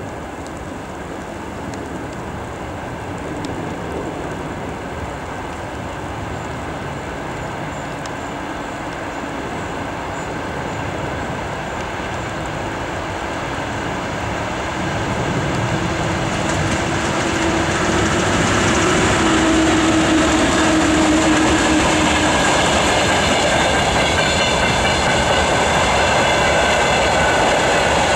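Freight train hauled by a VL10U electric locomotive approaching and passing, growing louder about halfway through and staying loud as the open freight wagons roll by on the rails.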